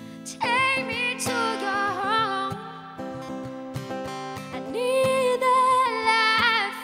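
A woman singing with her own acoustic guitar accompaniment: two sung phrases, the first starting about half a second in and the second about two-thirds of the way through, over steady guitar.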